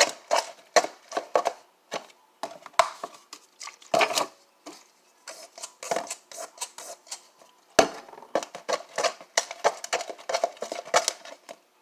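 A utensil stirring and scraping glue-based slime in a bowl: quick, irregular clicks and scrapes against the bowl, several a second, as the activator is mixed in.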